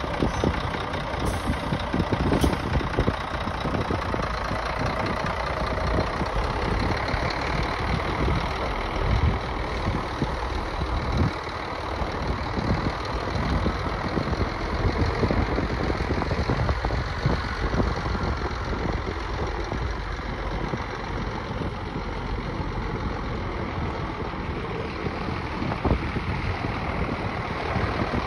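Scania R114 truck's 11-litre six-cylinder diesel running steadily while the truck is driven slowly away and back.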